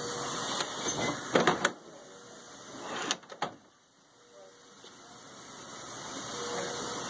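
Room noise with handling noise: a few sharp clicks and rustles as cloth brushes the phone's microphone. The sound goes muffled and nearly drops out about four seconds in, then slowly comes back.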